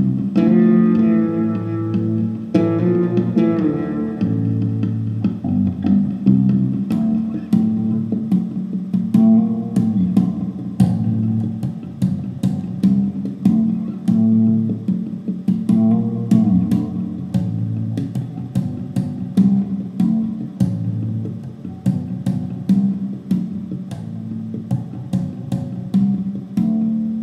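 Fender Jazz fretless electric bass playing a gipsy-jazz tune over its own looped bass parts from a Boss RC-20 loop station, with sharp percussive clicks running through it. The music starts dying away at the very end.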